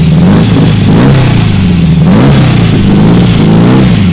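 Air-cooled VW flat-four in a drag-race Beetle, running loud with repeated throttle blips, its pitch rising and falling several times.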